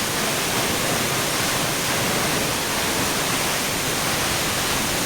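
Waterfall's water rushing as a steady, even roar of white noise, with no change.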